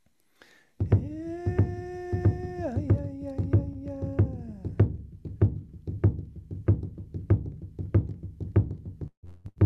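Cow-skin drum beaten in a steady beat of about three strokes a second. A man's voice holds a long chanted note over it that steps down in pitch and ends about four and a half seconds in, after which the drum carries on alone.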